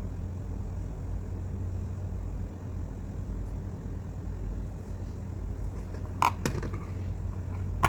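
Steady low hum with a light click about six seconds in.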